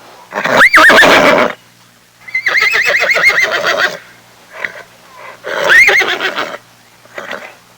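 Horse neighing three times, the middle whinny long with a rapid quaver, with a few short, quieter sounds between the calls.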